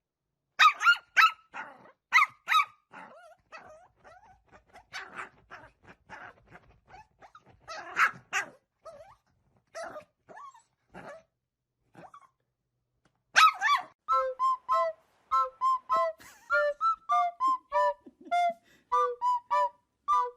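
A dog barking and yipping in short, irregular bursts. About two-thirds of the way through the barking stops and a light tune of short repeated notes begins.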